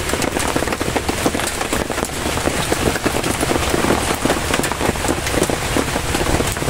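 Heavy rain falling steadily on the river and the boat, a dense hiss full of close, sharp drop hits.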